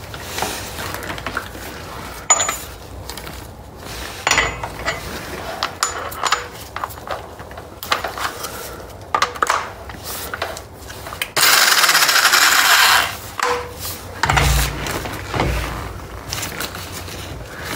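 Metal clinks, knocks and rubbing of an impact-wrench socket and hand tools being handled at a car's wheel hub and driveshaft nut. About two-thirds through comes a loud rushing burst lasting about a second and a half, followed by a few dull thuds.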